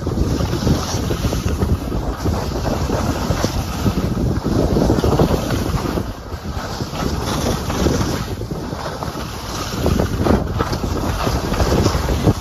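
Wind buffeting the microphone of a skier filming on the move, with skis scraping over chopped-up snow; the rush rises and falls in surges as the skier turns.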